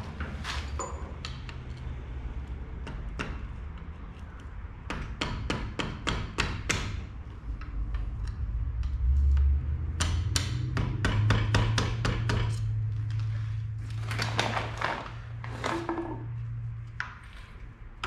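Mallet tapping a screwdriver used as a drift, driving the timing-chain sprocket onto a V6 engine's snout, a tight fit. Quick sharp taps come in bursts of several a second, with short pauses between the bursts.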